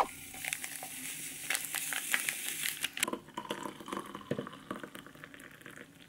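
A chai latte being made in a double-walled glass: a hissing pour with fine patters for about three seconds, then quieter stirring with a spoon and a few light clinks.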